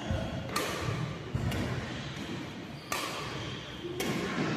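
Badminton racket hitting a shuttlecock back and forth in a rally: four sharp hits about a second apart, with dull thuds of feet on the court between them.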